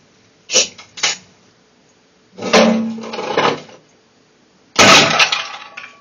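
Foley sound effects: three quick sharp knocks, then a longer scraping, rattling noise, then a loud sudden crash that dies away.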